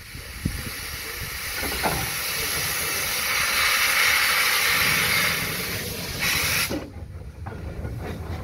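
Narrow-gauge steam locomotive letting off steam: a loud, even hiss that swells for a few seconds and then cuts off suddenly about seven seconds in, leaving a quieter low rumble.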